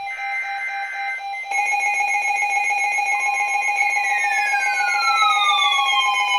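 Weather alert radios sounding alert tones for an incoming warning. A steady tone is joined about a second and a half in by several higher tones, then by another tone, and from about four seconds in by tones that slide downward in pitch.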